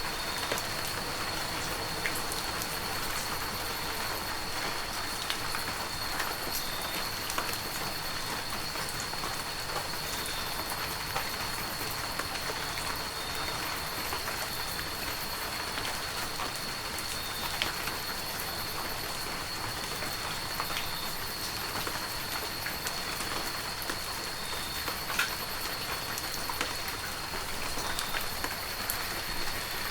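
Heavy rain falling steadily, with many individual drops ticking close by and a thin, steady high tone running through it.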